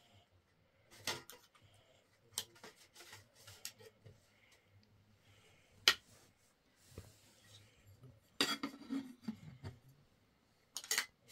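Metal kitchenware clinking and clattering: a spoon against dishes and the lid and cup of a large aluminium flask being handled. A handful of separate sharp clinks, the loudest about six seconds in, then a busier cluster of rattles a little later.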